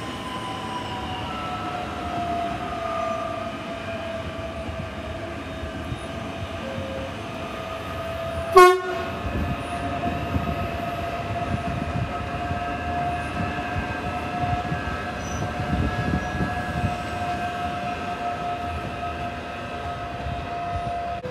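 Queensland Rail SMU electric multiple unit running away along the track, its motors giving a steady whine over a low rumble of wheels on rail. A brief, sharp, loud pip about eight and a half seconds in.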